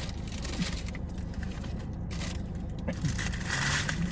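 Steady low rumble of a car's engine idling, heard inside the cabin, with faint small clicks and scrapes of eating.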